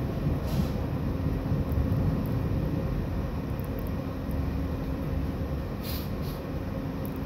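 Tram cabin noise: steady low rumble of wheels and running gear with a faint hum, easing slightly as the tram runs into a stop. Two brief hisses, about half a second in and around six seconds in.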